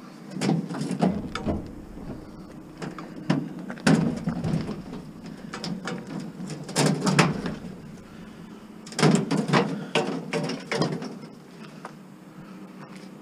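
Bursts of clanking and knocking from scrap metal being handled and moved, in four or five separate clusters with short pauses between them.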